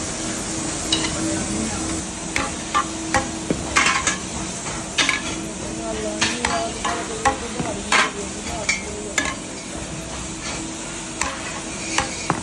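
Factory work noise: a steady hiss and hum with about a dozen irregular sharp clicks and knocks, as of metal parts being handled.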